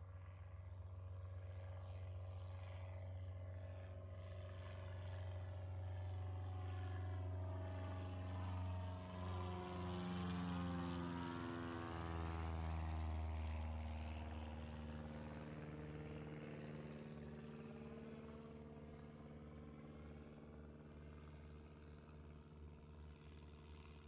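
Light propeller plane flying past overhead. Its engine drone swells and is loudest about halfway through, drops in pitch as it passes, then fades as it moves away.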